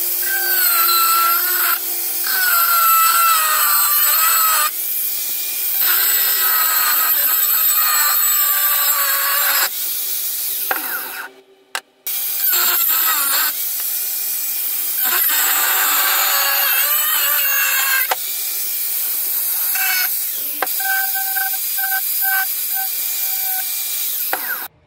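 Chicago Electric 4-inch angle grinder cutting through steel, its motor whine wavering up and down under load. It stops for about a second a little before halfway, then starts again and cuts on.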